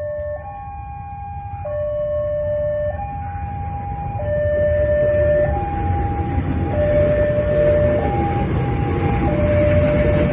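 KRL commuter electric train's departure horn sounding a two-tone hi-lo pattern, a higher and a lower note alternating about every second and a quarter. Under it the train's rumble grows steadily louder as it starts to move off.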